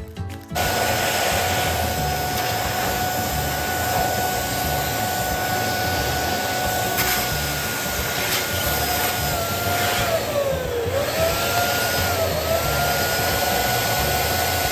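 Electric balloon pump running with a steady whine. It starts about half a second in, and its pitch dips and recovers a few times around ten seconds in.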